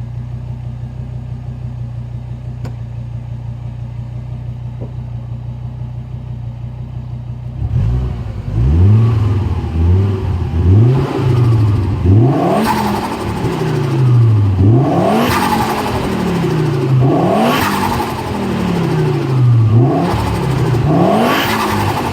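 Turbocharged 20-valve engine with a Garrett GT2871R turbo idling steadily, then revved repeatedly from about eight seconds in, its pitch climbing and falling with each blip. A short hissing chatter comes at each throttle lift-off: turbo flutter.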